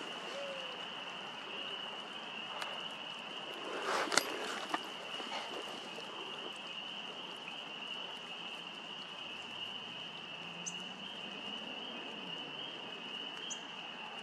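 Outdoor ambience carried by a steady, high-pitched distant chorus drone, with a brief crackle of dry leaves and twigs about four seconds in and a faint low rising hum around ten seconds.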